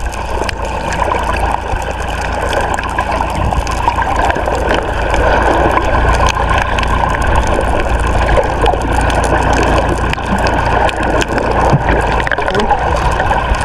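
Water rushing and sloshing around a small fishing boat at sea, over a steady low rumble.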